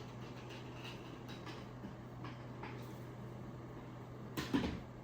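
Car bed platform parts being handled during assembly: a few faint clicks and taps, then a short clatter of louder knocks near the end, over a low steady hum.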